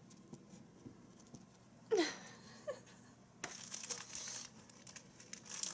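Packaging being handled: crinkling and rustling that starts about three and a half seconds in and carries on, after a brief falling squeak-like vocal sound about two seconds in.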